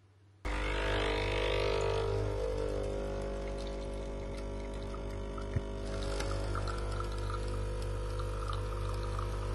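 Espresso machine's pump humming steadily as it pulls a shot, switching on suddenly about half a second in, with coffee streaming into a glass cup. A single sharp click about five and a half seconds in.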